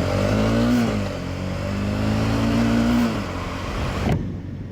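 Motorcycle engine accelerating: the pitch rises, dips at an upshift about a second in, climbs again, then drops as the throttle closes about three seconds in. Wind noise on the microphone sits under it and drops away suddenly near the end.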